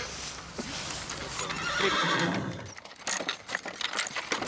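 A horse neighs about two seconds in, then its hooves clop in a quick, even run of beats.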